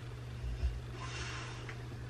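Quiet room tone with a steady low hum. A soft low thump comes about half a second in, and a brief rustle follows a second in: small desk-handling noises while studying.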